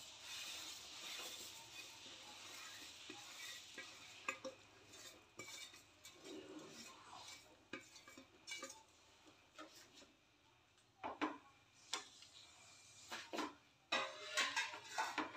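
Vermicelli tipped into a pan of boiling milk with a soft rustle, then a steel spoon stirring it in, clinking lightly against the metal pan. The clinks are scattered and come thicker near the end.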